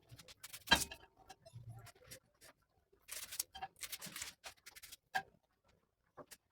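Kitchen handling sounds: one sharp knock about a second in, then scattered light clicks and a run of short scraping noises.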